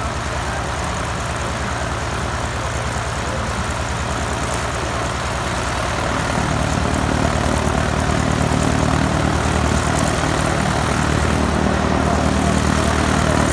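Cessna single-engine plane's piston engine and propeller running at low taxi power, a steady pulsing drone. It grows louder about halfway through as the plane comes closer.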